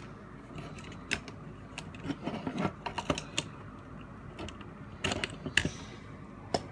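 Irregular light clicks and taps of small hard plastic parts being handled and pried as a toy robot figure's shoulder joint is taken apart, in scattered clusters.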